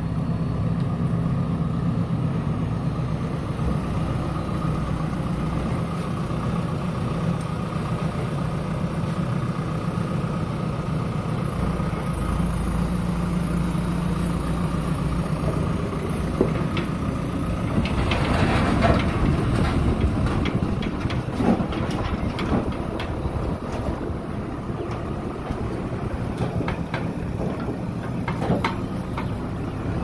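JCB backhoe loader's diesel engine running steadily. About eighteen seconds in it gets louder for a few seconds, with knocks and clatter mixed in as the loader works.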